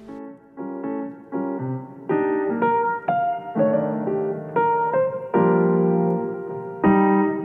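Background music: piano playing a melody over chords, notes struck about twice a second, growing louder over the first two seconds.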